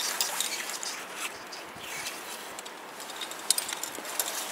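Climbing gear on a harness handled as the climber moves up the rock: quiet rustling with a few light clinks of carabiners, more of them near the end.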